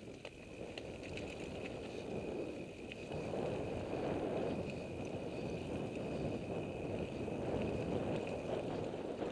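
Mountain bike riding fast down a dirt trail: a steady rush of tyres on dirt, with scattered small rattles and clicks from the bike. It gets louder about three seconds in.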